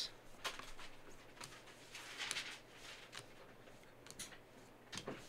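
Trading cards being slid one by one off a hand-held stack, giving a few faint, scattered clicks and a short soft rustle about two seconds in.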